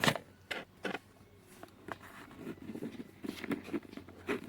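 Drawing or painting on paper: a few light taps of the tool, then soft scratchy strokes over the sheet.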